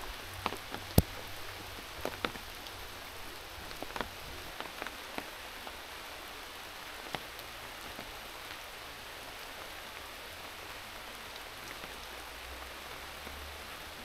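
Steady rain falling in a forest, an even hiss with scattered sharper taps of drops, the loudest about a second in.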